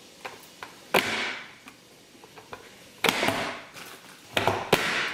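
Manual press-style vegetable chopper dicing baby carrots: a couple of light clicks as pieces are set on the blade grid, then the lid slapped down four times (about a second in, at three seconds, and twice near the end), each a sharp clack with a brief noisy tail as the carrots are forced through the grid.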